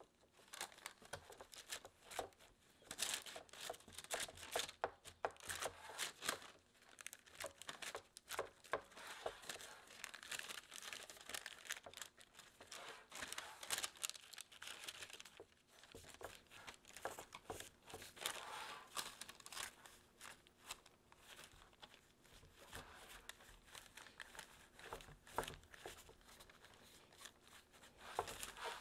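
Parchment paper crinkling and disposable gloves rubbing as hands press crumbly butter crust dough into a lined square baking pan: irregular crackles and rustles.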